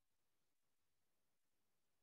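Near silence: a pause in the speech with only faint room tone.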